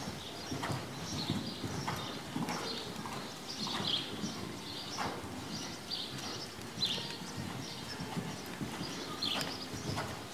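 Hoofbeats of a ridden horse on the sand footing of an indoor arena: a steady, even rhythm of dull thuds.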